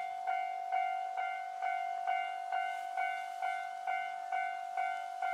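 Japanese railway level crossing warning bell ringing: sharp metallic strokes about twice a second over a steady ringing tone, the alarm that sounds while the crossing closes for an approaching train.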